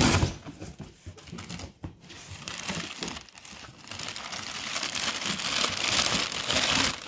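Brown packing paper crinkling and rustling as gloved hands dig it out of a cardboard box, with a loud rustle at the start and the crinkling growing louder and denser over the last three seconds.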